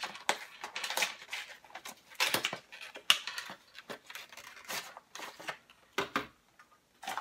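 A small retail box being opened by hand: irregular rustling, scraping and crinkling of the packaging, with a few sharp clicks.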